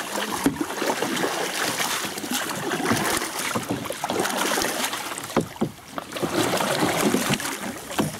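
Kayak paddles dipping and splashing, with water washing along the plastic hull, and a few short knocks scattered through it.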